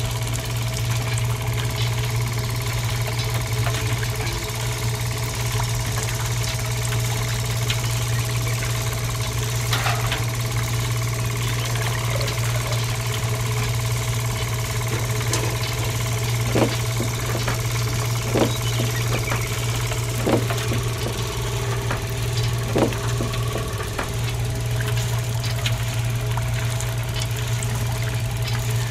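Small DC electric motor of a miniature strawberry crusher running with a steady hum. Four light knocks come in the second half.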